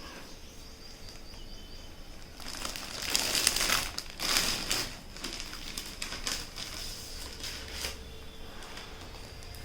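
Packaging crinkling and rustling as it is handled, in irregular bursts that start a couple of seconds in and die down toward the end.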